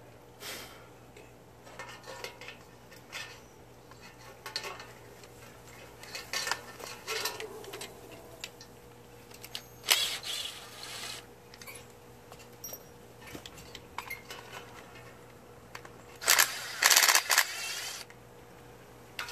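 Small metal parts and hardware being handled, clinking and rattling in scattered clicks. There is a sharp click about halfway and a louder run of clattering near the end.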